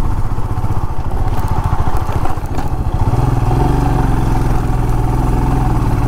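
Motorcycle engine running under way, heard from the rider's seat; the sound is uneven for the first few seconds, then settles into a steady even note from about three seconds in.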